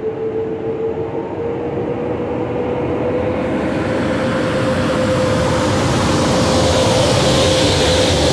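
EP09 electric locomotive hauling a passenger train as it gathers speed and passes close by: a steady whine that climbs slowly in pitch, over a rumble and hiss of wheels on the rails that grow steadily louder.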